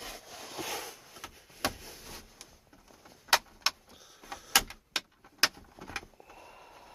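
Plastic bolt-cover caps on a pickup's centre console armrest being pried off: a scraping rustle, then a series of sharp, irregular clicks and snaps.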